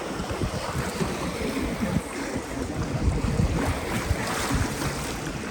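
Wind buffeting the microphone in irregular gusts over a steady rush from an open canal tour boat moving through the water.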